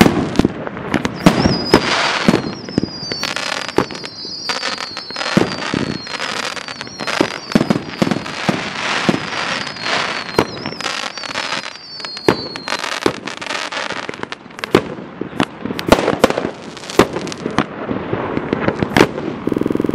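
Dominator "Fast and Furious" 1.4G consumer fireworks going off in a rapid volley: many sharp bangs of launches and bursts, with crackling between them. From about a second in until about thirteen seconds, a string of short whistles falls in pitch.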